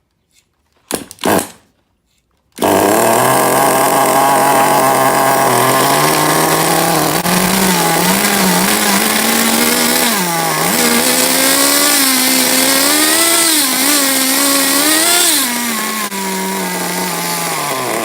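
Small .18-size nitro glow engine of an RC car starting suddenly a couple of seconds in, then running with a high, buzzy note whose pitch climbs and wavers as the revs rise and fall. It drops back to a lower steady run near the end.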